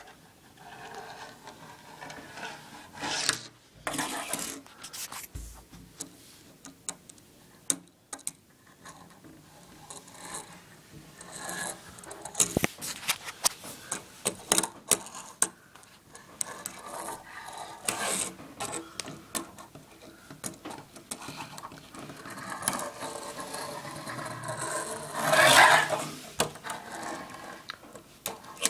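Tech Deck fingerboard rolling and scraping on a wooden surface, with many sharp clicks and clacks as the board is popped and lands. The loudest sound is a scrape lasting about a second near the end.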